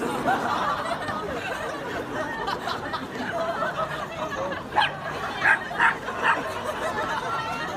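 Crowd of onlookers chattering and laughing, with a small dog yapping four quick times about five seconds in.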